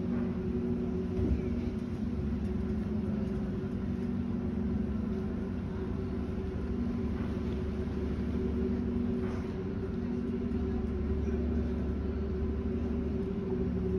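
Passenger ferry's engines running with a steady low drone and a few held hum tones, the low rumble swelling slightly near the end.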